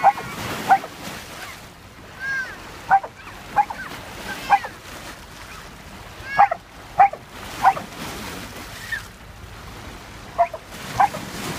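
Dog barking in short, high yips, about ten of them in small clusters with pauses between.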